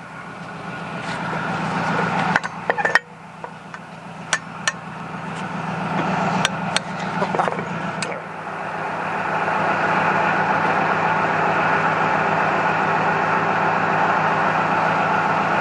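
A machine's motor running steadily with a fast even pulse, swelling and easing in level, with sharp metal clinks and clanks in the first half; from about ten seconds in it holds steady.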